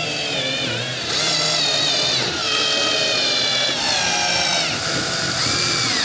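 Electric drill-driver driving screws straight into a wooden tabletop without pre-drilling. Its motor whine rises and drops in pitch several times as the screws go in and are tightened.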